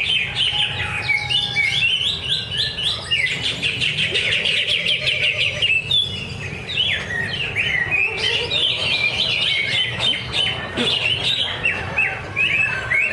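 A cucak ijo (green leafbird) singing a fast, unbroken stream of chirps and whistles, pausing briefly near the middle.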